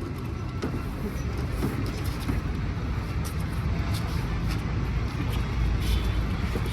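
Motor vehicle running on the road: a steady low rumble with scattered light clicks and rattles.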